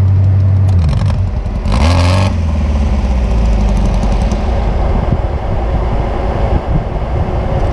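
Sand rail engine running at a steady low speed, its note dropping about a second in, then a brief rev with a burst of hiss near two seconds in, after which it runs unevenly at low speed.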